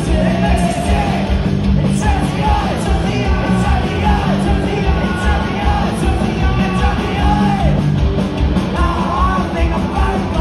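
Loud live punk rock from a two-piece band: shouted vocals over electric guitar and a steady, driving drum beat.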